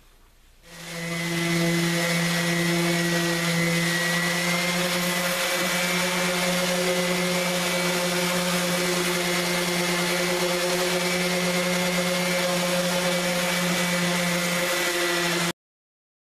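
Electric random-orbit palm sander running steadily against the bare cedar planking of a canoe hull, sanding off the old finish. It is a constant motor hum with a sanding hiss, starting about a second in and stopping abruptly near the end.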